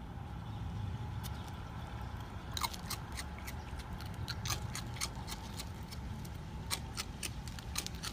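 Raccoon chewing crunchy ring cereal: sharp, irregular crunching clicks, several a second, starting about two and a half seconds in, over a steady low hum.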